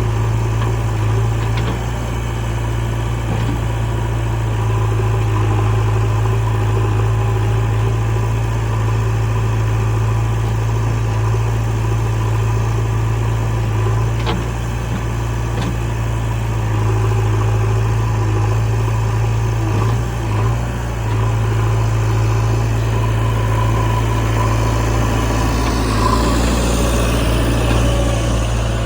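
Diesel engine of heavy machinery idling and running steadily with a deep, even drone. There are a couple of faint clicks about halfway, and a brighter, higher sound swells near the end.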